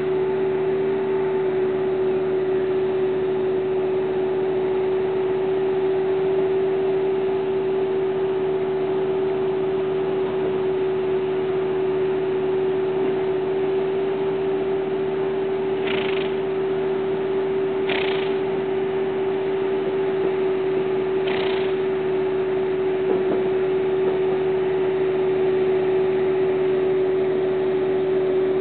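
A steady, unbroken hum with one strong, even pitch over a background of hiss. Three short hissing bursts come a little past halfway.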